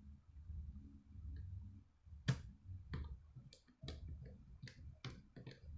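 Scattered small clicks and taps of laptop parts being handled and fitted back together during reassembly, over a low rumble of handling noise. The loudest click comes a little over two seconds in, with several lighter ones after it.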